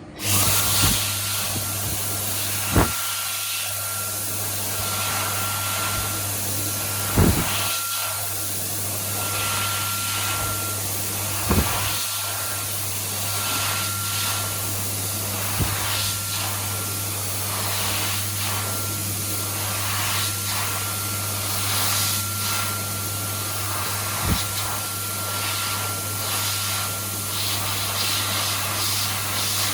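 Dyson Airblade V hand dryer running: a steady rush of air with a steady high whine and a low hum, starting suddenly and cutting off at the end. A few sharp knocks sound during the run.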